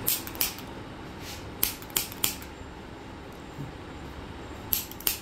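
About seven short, sharp clicks at irregular intervals, in two clusters near the start and one pair near the end, over a steady low background noise.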